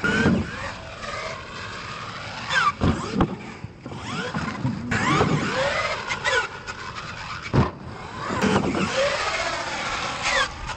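Radio-controlled monster truck's motor whining up and down in pitch as the throttle is worked, with about four thumps as it lands jumps and hits the dirt.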